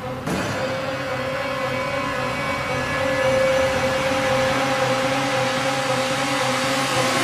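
A steady droning hum with a held mid-pitched tone over a hiss, slowly growing louder.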